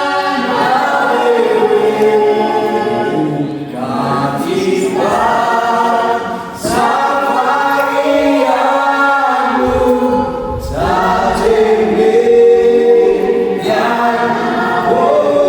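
A choir singing gospel music in several sung phrases with short breaks between them.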